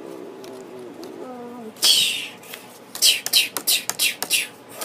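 A child's voice making dinosaur battle noises: a low wavering growl, then a loud hiss and a quick run of about six or seven sharp, breathy hissing bursts.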